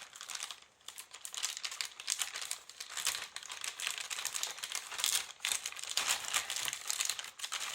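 Parcel packaging being pulled open by hand: a continuous run of rustling and crinkling made of many irregular, sharp crackles.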